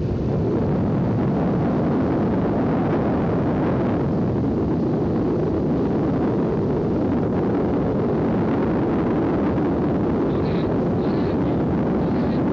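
Steady low rumble of a moving vehicle's engine and road noise, heard from inside the vehicle as it drives along.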